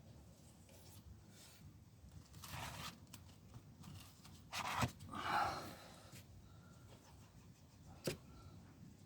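Short scrapes of a spreader working metal-based body filler with its hardener, two brief strokes with the louder one about halfway through, then a single sharp click near the end.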